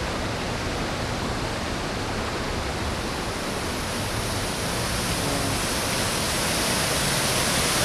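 Steady rush of a shallow creek running fast over rocks in a riffle. From about halfway in, it turns hissier and a little louder as the sound of water spilling over a low dam takes over.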